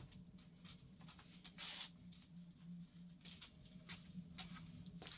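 Near silence with faint handling noises on a workbench: scattered light clicks and one short rustle about one and a half seconds in, over a low steady hum.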